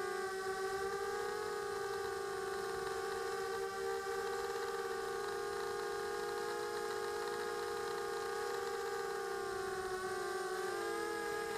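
Quadcopter's electric motors and propellers, heard from the camera on board, giving a steady multi-tone whine. The pitch dips and rises briefly near the end as the throttle changes.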